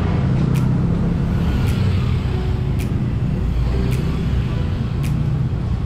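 Busy street traffic: a steady low rumble of passing vehicles, with a faint sharp tick about once a second.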